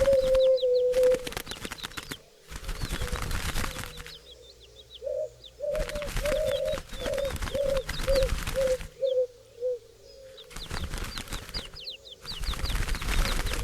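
Birds' wings flapping in several stretches of a second or more with short gaps between. Between about five and ten seconds in, a run of low repeated coos gets shorter note by note, with brief high chirps from small birds.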